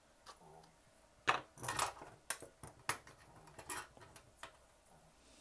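Metal grooming tools clicking and clinking as shears and combs are handled and set down on a grooming table: about half a dozen sharp, irregular clicks.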